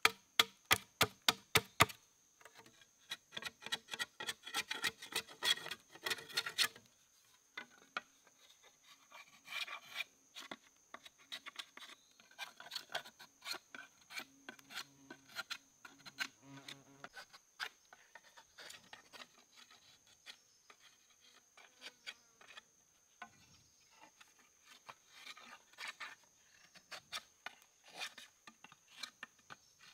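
Wood being worked by hand: sharp knocks about four a second at first, then a quick run of rapid scraping strokes, then scattered scraping, rubbing and clicks. A steady high-pitched insect drone sounds over it.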